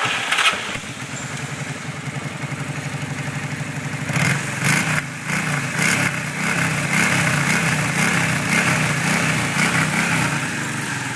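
Honda Shadow 600's V-twin starting up and idling with an even, pulsing beat, then given a few short blips of throttle from about four seconds in. It runs through a prototype Roncar Scorpion 2Way exhaust with its valve closed, in the quiet setting.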